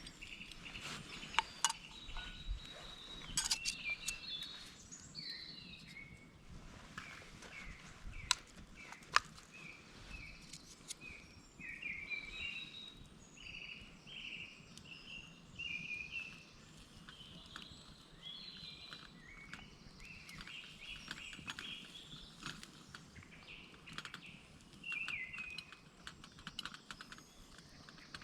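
Woodland songbirds singing: a steady run of short, high chirps and warbling phrases, with a few sharp clicks and snaps in the first ten seconds.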